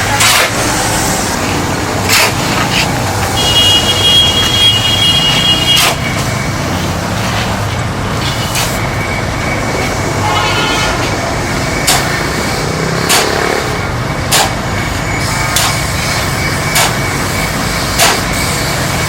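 Steady engine or machine rumble with sharp knocks every second or two, and a high horn-like tone held for about two seconds near the start.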